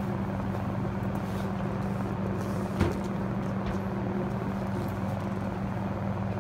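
Steady low machine hum, with one sharp knock about three seconds in and a few faint ticks.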